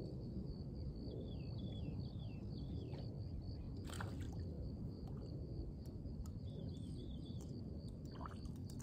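Lakeside outdoor ambience: a steady low rumble with a steady high tone above it, while a bird gives short falling chirps in two bouts, about a second in and again near seven seconds. A single sharp click comes about four seconds in.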